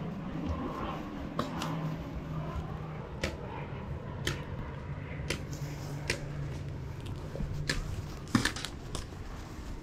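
Paintball markers firing: scattered sharp pops at irregular intervals, roughly one a second, over a steady low hum.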